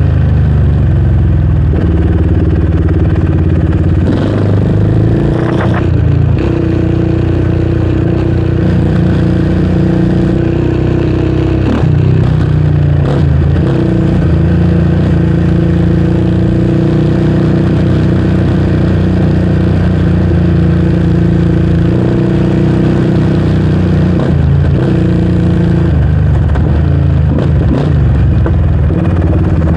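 Yamaha Raptor 700R sport quad's single-cylinder four-stroke engine running steadily while riding. The engine note steps up and down a few times, around 5, 12 and 25 seconds in.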